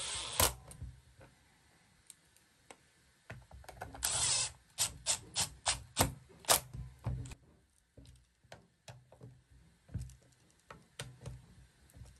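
A cordless Milwaukee driver whirring in two short runs as it drives screws into a hedge cutter's metal gearbox cover. After the second run comes a string of sharp clicks, about four a second, then fainter clicks and knocks as the screws are turned by hand.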